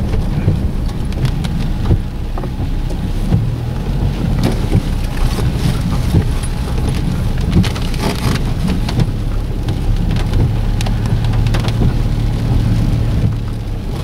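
Inside a car creeping over a rough, wet dirt road: a steady low engine and road rumble, with scattered sharp ticks and knocks, and rain falling on the car.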